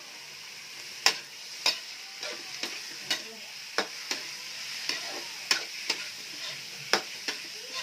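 Chicken pieces sizzling in a steel wok as they are stir-fried, with a metal spatula knocking and scraping against the pan about a dozen times.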